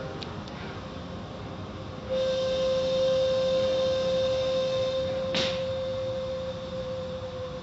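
Car wash machinery running: a steady mid-pitched whine comes in sharply about two seconds in and holds for about five seconds over a low rumble, with a brief whoosh about five seconds in.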